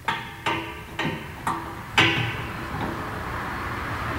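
Adjustable wrench clinking against the metal fittings on the compressor tank: five sharp ringing clicks about two a second. About two seconds in, a steady noise takes over.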